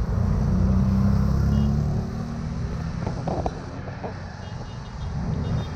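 Road traffic: a motor vehicle's low rumble, loudest in the first two seconds and then fading. A few short higher tones sound about halfway through.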